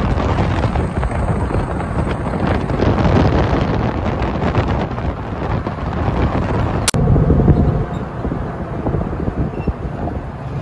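Wind buffeting the microphone over the road noise of a pickup truck driving with a trailer in tow. A single sharp click about seven seconds in.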